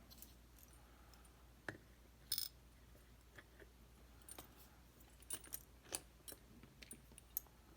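Faint, scattered small metallic clicks and ticks, about half a dozen over several seconds, the sharpest about two and a half seconds in: tiny pins and springs being worked out of a West 916 dimple lock's pin chambers as it is gutted.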